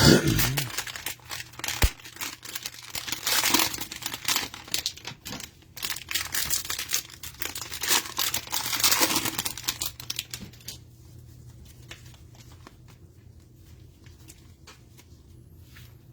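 A thump at the start, then the cellophane wrapper of a trading-card cello pack being torn open and crinkled, with many sharp crackles, dying away after about ten seconds.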